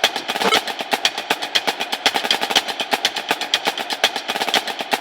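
Rapid, uneven percussive clicking, about ten sharp taps a second, going on steadily.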